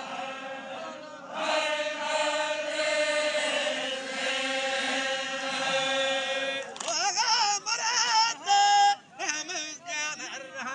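Men's voices chanting a Zikri Baloch chogan, holding long drawn-out notes together. From about seven seconds in, the singing breaks into shorter, wavering phrases with brief gaps between them.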